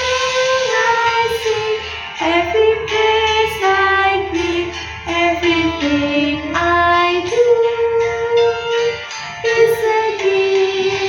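Female voices singing a sustained melody with a guitar accompaniment in a Christmas praise song.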